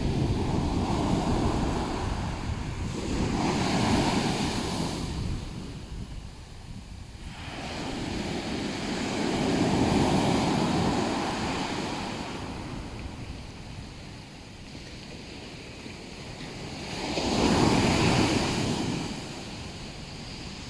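Ocean waves breaking on the shore, the surf swelling and ebbing as four waves come in, about 4, 10 and 18 seconds apart, the one near the end the loudest.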